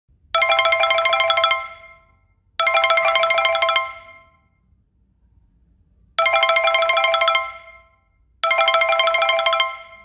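TamTam Messenger call ringtone: a bright electronic trill ringing in bursts of about a second each, two rings, a pause of about two seconds, then two more rings.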